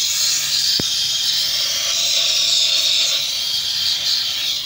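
Aerosol spray cleaner hissing steadily as its jet, through the extension straw, washes a CVT transmission oil strainer.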